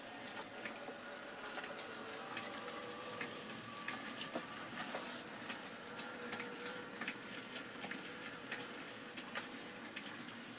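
Model railway goods train running: a rake of wagons clicking irregularly over the rail joints, over a steady electric motor hum.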